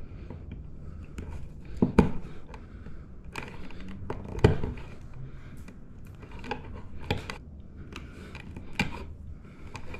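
Hand wire strippers clicking and snipping as electrical cable is stripped and its wires bent at a ceiling box, with two sharp snaps about two and four and a half seconds in.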